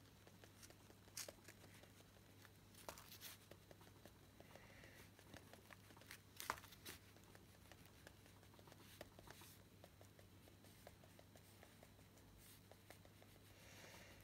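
Near silence: a low steady hum with a few faint scratches and ticks from an encaustic wax stylus being drawn over waxed card.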